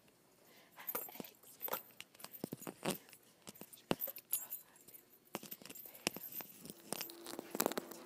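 Irregular rustling, clicks and knocks from a handheld phone being jostled against clothing and a backpack, with light jingling. A steady low hum comes in near the end.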